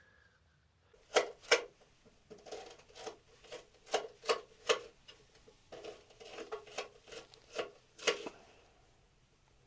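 An irregular series of sharp knocks and taps, about fifteen in all, in two runs with a short pause between them.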